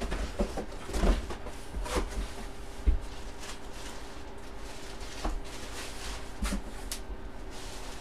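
Table-top handling of card packs and envelopes: scattered clicks, taps and light rustles, with a dull knock about three seconds in, over a steady electrical hum.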